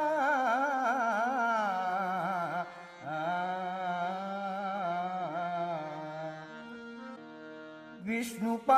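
Intro of a Marathi devotional bhajan: a slow, wordless melody of long, wavering, gliding notes, settling into steadier held notes. A few sharp drum strikes come near the end, leading into the singing.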